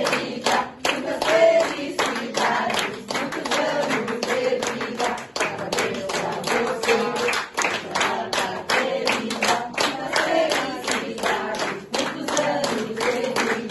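A group of people clapping in a steady rhythm while singing a birthday song together.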